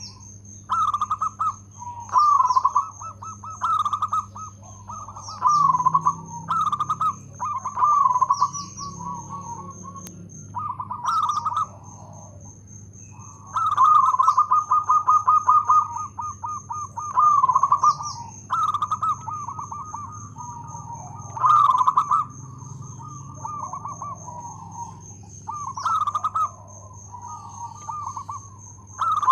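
Zebra dove (perkutut) singing its cooing song: phrases of quick stuttering coos, a second or so each, repeated every one to two seconds, with one longer run of rapid notes around the middle.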